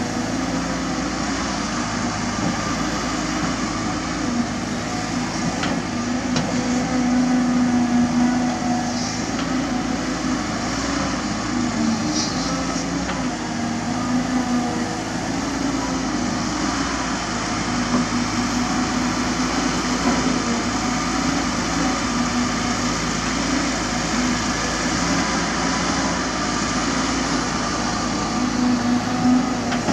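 Cat 320D2 hydraulic excavator's diesel engine running steadily under load as the machine digs, with a few faint knocks.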